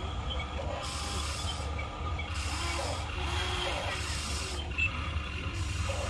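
Small electric gear motors of Huina RC excavators whirring and grinding as their booms and buckets move, over a steady low hum.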